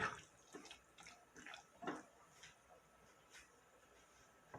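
Faint, scattered clicks and light ticks, several in the first two seconds and fewer after, over quiet room tone.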